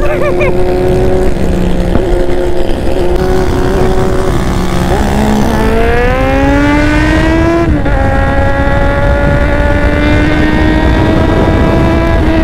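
Kawasaki Z800's inline-four engine under way: running steadily, then accelerating with a rising pitch for a couple of seconds, a sudden drop at a gear change about eight seconds in, and then pulling on with a slow rise.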